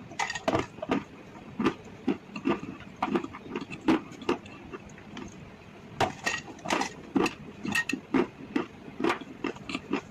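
Close-miked crunching and chewing of hard, chalky mineral sticks, with sharp cracks about two a second over a steady gritty crackle.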